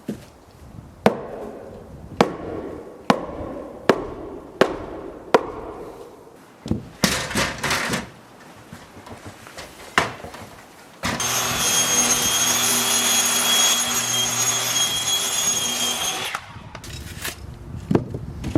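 Nails being driven into wall sheathing: sharp strikes about one a second, then a quicker cluster. About eleven seconds in, a power tool runs steadily with a whine for about five seconds and cuts off sharply, followed by a few more strikes.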